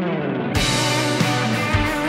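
Background rock music led by guitar; the fuller band, with drums and bass, comes in about half a second in.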